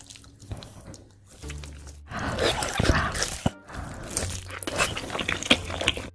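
Crunchy bites into and chewing of glazed fried chicken, ASMR-style close to the microphone. Loud crackling crunches start about two seconds in, break off briefly around the middle, then carry on.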